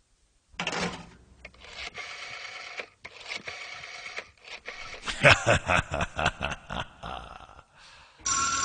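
Cartoon voices or vocal sound effects with a fast run of pulses in the middle, then a telephone starts ringing near the end with a steady two-tone ring.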